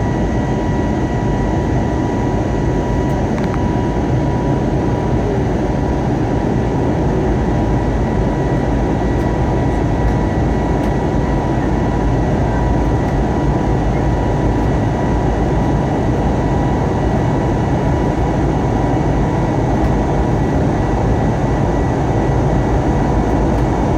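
Steady cabin noise of an Airbus A320neo jet airliner in flight: the even rush of the engines and airflow, with a steady high hum running through it.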